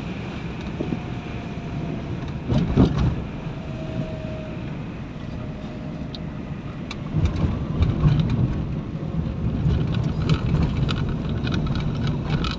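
Car interior noise while driving: engine and tyre rumble, swelling louder twice, with small knocks and rattles over the uneven road.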